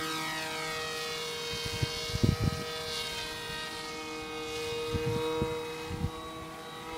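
Electric RC plane's 1300 kV Blue Wonder brushless motor driving an 8x4 pusher prop on a 3-cell battery, whining steadily as the plane passes and climbs away, its tone shifting as it goes by near the start. A few low thumps, the loudest about two seconds in.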